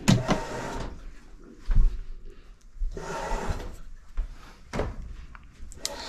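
Handling noises: a plug scraping as it is pushed into a wall outlet, followed by scattered knocks, rustles and a couple of sharp clicks.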